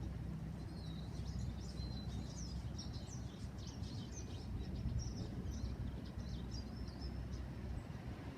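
Small birds chirping: many short, quick calls, some gliding in pitch, over a steady low rumble.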